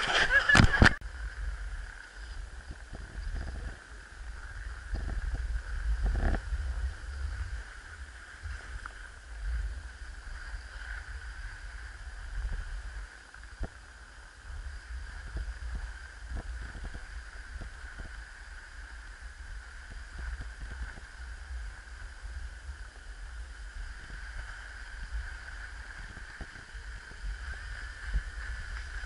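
Wind rumbling on an action camera's microphone as the wearer slides down a packed-snow slope, with a steady hiss and occasional scrapes and clicks from the snow.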